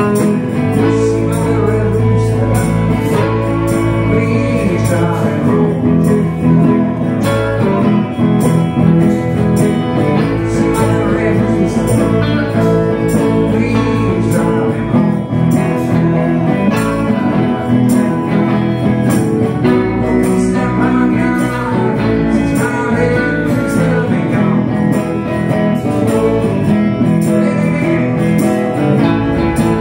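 Live blues band playing: a sunburst archtop electric guitar and other guitars over a steady beat, with a man singing at times.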